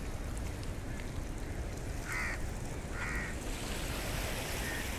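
A steady rush of wind and surf on the shore. A bird calls twice, about two and three seconds in, and twice more, fainter, near the end.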